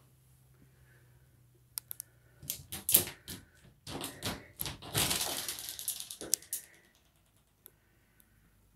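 Framed glass shower door being handled and opened: a quick run of clicks and rattles from its metal frame, then a louder rushing scrape that fades out about seven seconds in.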